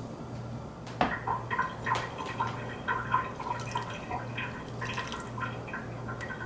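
Water poured from a small bowl into a stainless-steel frying pan, splashing onto sliced vegetables and into the liquid already there. It starts with a sharp splash about a second in, then runs on as a string of small splashes and drips.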